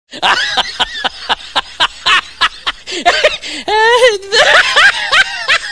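Cartoon character voices laughing and making wordless vocal noises over a quick series of sharp clicks, with a warbling, wavering vocal sound about two-thirds of the way through.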